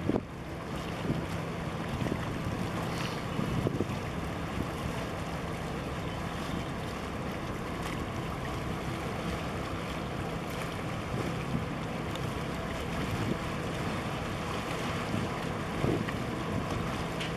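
Wind buffeting the microphone over small waves lapping and splashing against concrete breakwater tetrapods, with a steady low drone underneath. The splashes swell briefly a few seconds in and again near the end.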